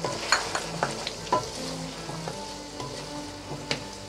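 Potatoes, green peas and chicken keema sizzling in a wok with a little water in it, stirred with a spatula that scrapes and clicks sharply against the pan several times.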